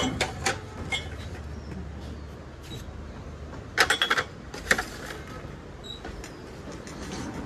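Ceramic mugs and cups clinking and knocking together as they are handled on a kitchen shelf. The loudest run of clinks comes about four seconds in, with another a moment later. A low hum underneath fades out partway through.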